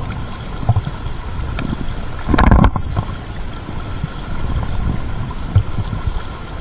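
River water flowing and gurgling around a wading angler, with wind buffeting the microphone; a louder rush about two and a half seconds in.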